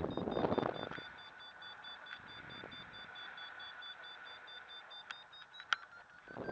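Paragliding variometer beeping rapidly at a steady pitch, the climb tone of a glider rising in a thermal, with gusts of wind on the microphone near the start and a sharp click near the end.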